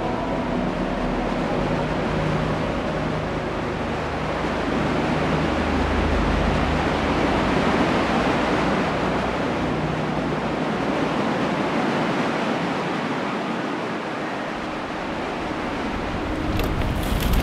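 Steady rushing of ocean surf that swells and eases slowly, with a low sustained music drone fading out in the first few seconds. Sharp crackling starts near the end.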